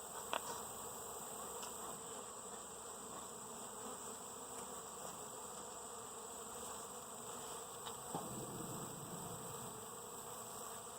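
Honeybees buzzing in a steady, unbroken hum around an opened hive.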